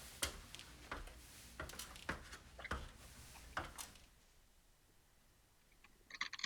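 Light, irregular knocks and clicks with a low rumble, a few to the second, stopping about four seconds in; a few faint clicks come back near the end.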